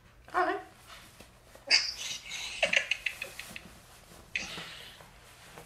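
A woman's high-pitched squeals and laughter coming over a video call, mixed with fabric rustling as a hoodie is pulled off over the head.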